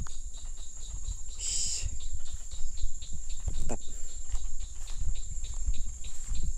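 Insects calling in the background: a steady high-pitched drone with a quick, regular pulsing chirp beneath it, and a brief high call about one and a half seconds in. Low rumbling handling noise on the microphone comes and goes as the bird is turned in the hand.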